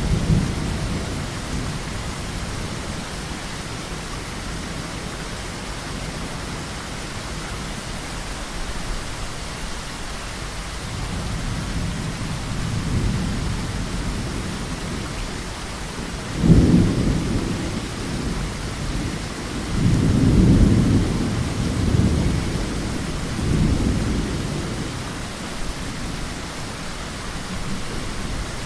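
Heavy rain falling steadily, with thunder: a low rumble early on that fades, then a sudden sharp clap a little past halfway, followed by rolling rumbles that swell and die away.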